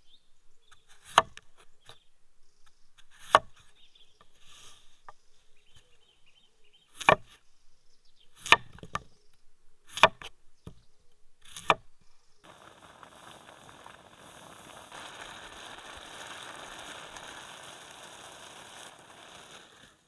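Six sharp chopping strikes on wood, a second or two apart, then a steady hiss for the last several seconds.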